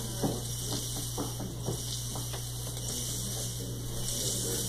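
Slinky spring shaken side to side across a floor, its coils rattling and scraping with a rustling hiss and scattered faint clicks, over a steady low hum.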